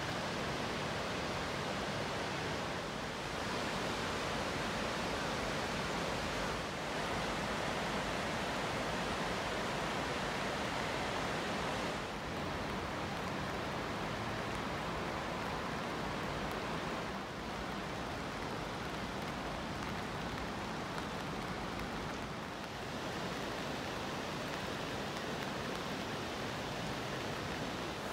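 Steady rush of river water pouring over the wide weir, an even noise with small shifts in level every few seconds.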